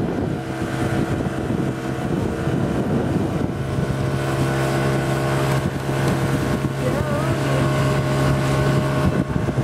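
Yamaha 30 HMHS two-stroke outboard running steadily at planing speed, with the rush of wind on the microphone; the engine note steps up a little about three and a half seconds in.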